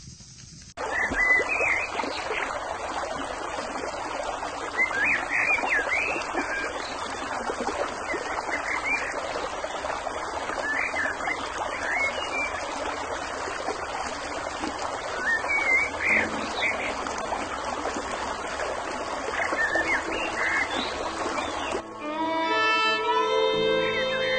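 Stream water running steadily over rocks, with short high chirping calls now and then. The stream starts abruptly about a second in. Near the end, music with sustained tones comes in.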